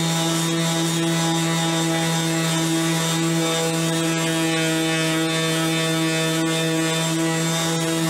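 Ryobi RROS18C brushless 18 V random orbital sander running at a steady speed while sanding a wooden board: an even motor hum with the hiss of the sanding disc rubbing on the wood.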